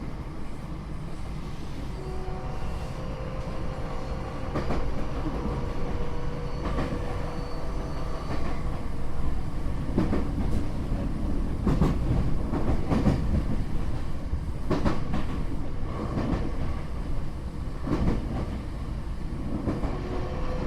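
Tokyo Metro 8000 series electric train with a Mitsubishi IGBT-VVVF inverter, heard from inside the car: a steady motor whine over the rumble of the wheels, with wheels clacking over rail joints every second or few. This car is known as an odd-noise car whose motor sound is muddy at most speeds. Near the end the whine falls in pitch.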